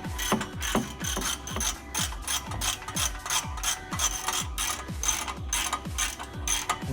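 Ratchet wrench clicking in quick strokes as the exhaust flange nuts are run down, over background music with a steady bass beat.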